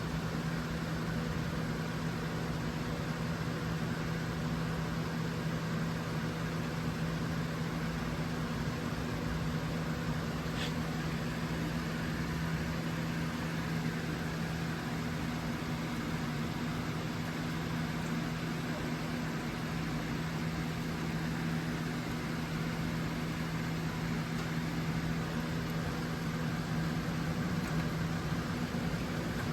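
Steady machine hum, even throughout, with a faint tick about ten seconds in.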